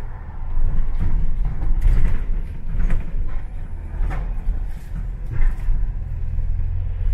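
London bus in motion, heard from inside the passenger cabin: a steady low engine and road rumble, with a few short knocks or rattles about once a second through the middle of the stretch.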